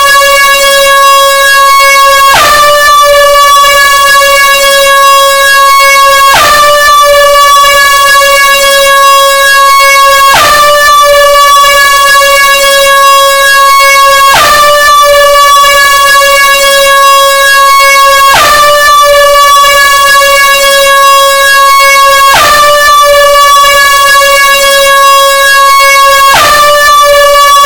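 Air horn blaring continuously and extremely loud on one steady note. About every four seconds the blast starts over, the pitch dipping briefly at each restart.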